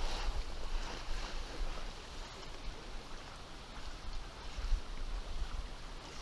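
Water in a small river running steadily, with a low rumbling on the microphone that comes and goes.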